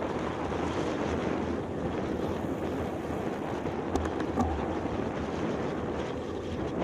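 Wind buffeting the microphone of a handlebar camera on a moving road bike, a steady rushing noise with a low rumble underneath. A couple of brief clicks come a little past the middle.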